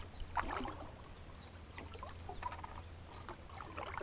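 Wooden canoe paddle dipping and being drawn through calm lake water, with water trickling and dripping off the blade.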